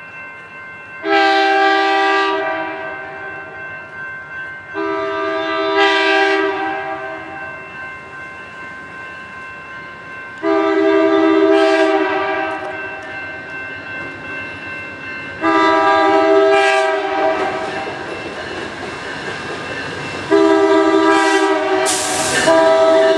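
Amtrak GE P42 locomotive's Nathan K5LA five-chime air horn sounding five blasts of about two seconds each, roughly every five seconds, as the train approaches; the last blast is still sounding at the end. The train's running rumble fills the gaps.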